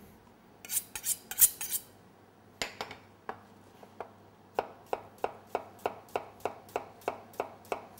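Chef's knife drawn a few times along a honing steel in quick scraping strokes. From about two and a half seconds in, the knife chops through an onion onto a plastic cutting board, settling into about three even chops a second.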